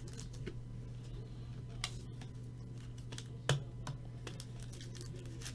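Trading cards being handled: scattered light clicks and taps as cards are slid and set down, the loudest about three and a half seconds in, over a steady low hum.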